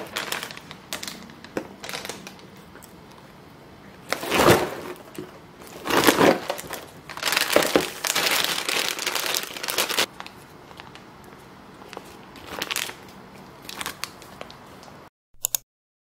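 Plastic packaging on frozen meat and squid packs crinkling and rustling as they are handled, in several irregular bursts, loudest from about four to ten seconds in. It cuts off near the end.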